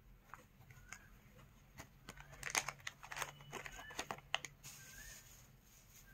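Crinkling and crackling of a silver anti-static plastic bag as a small meter is pulled out of it. The crackles bunch up in the middle.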